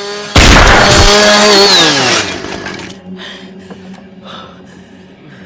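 A sudden loud crash as a vehicle strikes a man holding a running chainsaw. The chainsaw's engine whine runs through the crash and falls in pitch as it dies away, followed by scattered smaller knocks and clatter.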